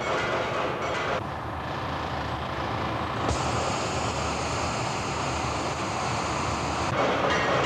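Factory workshop noise: a steady mix of machinery rumble and hiss that changes abruptly about a second in, again at about three seconds, and near the end, with a high hiss in the middle part.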